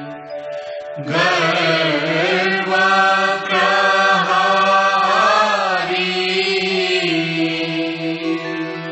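Devotional aarti chant sung to a slow melody. A new phrase with gliding notes starts about a second in, and a long note is held through the last few seconds.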